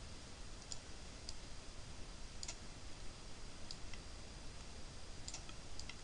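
Faint, sparse clicks of a computer mouse, about six scattered irregularly, over a low steady hiss.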